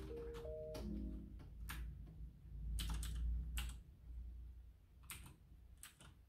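Typing on a computer keyboard: scattered, uneven keystrokes and clicks over a low hum, with the last notes of a background music track dying away in the first second.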